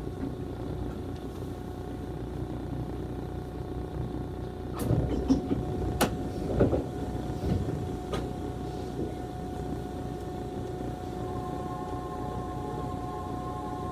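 Electric commuter train standing at a station platform, its onboard equipment giving a steady hum. A few sharp knocks and clunks come about five to eight seconds in.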